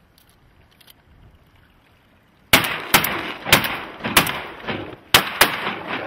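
A rapid volley of shotgun shots, about six cracks in three seconds at uneven spacing, starting about two and a half seconds in after a quiet start.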